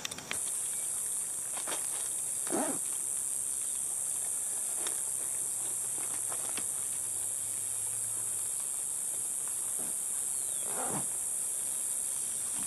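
Steady, high-pitched chorus of insects in a summer field at dusk, with a couple of short lower animal calls, one a few seconds in and one near the end.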